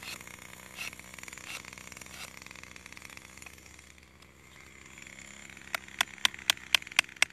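Faint scraping and a few soft clicks as a grafting tool lifts walnut bark, then a run of about ten sharp taps, about four a second, near the end as the scion is driven down under the bark to seat it.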